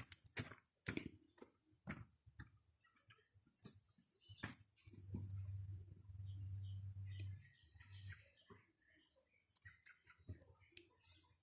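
Faint scattered clicks and taps with soft, high chirps from a small pet bird. A low hum runs for about two seconds in the middle.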